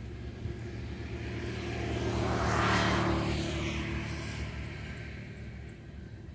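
A motor vehicle passing by: its engine and tyre noise swells to a peak about two and a half seconds in, then fades away over a steady low engine hum.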